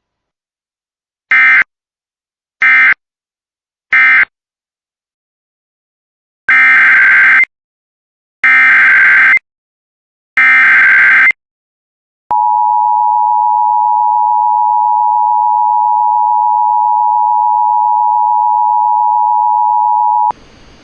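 Emergency Alert System signals. First come three short bursts of SAME digital data, the end-of-message code closing the previous alert. Then come three longer SAME header bursts announcing the next alert, followed by the two-tone attention signal, a steady tone held for about eight seconds that cuts off suddenly.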